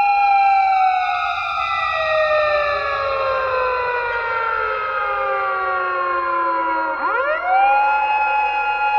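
Siren wailing: its pitch falls slowly for about seven seconds, then sweeps quickly back up and holds high near the end, alongside steady higher tones.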